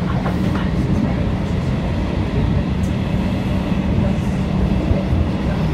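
Passenger train running along the track, heard from inside the carriage: a steady low hum over the rumble of the wheels on the rails.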